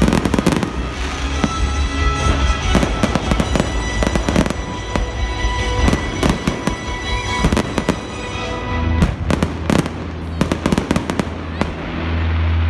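Fireworks bursting and crackling in quick succession, with the crackles densest about two-thirds of the way through. Music plays steadily underneath.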